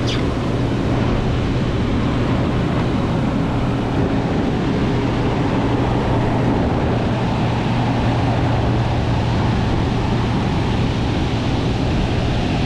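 Large, hurricane-driven ocean surf breaking on the beach, heard together with strong wind buffeting the microphone as a steady, dense rushing noise with a low rumble underneath.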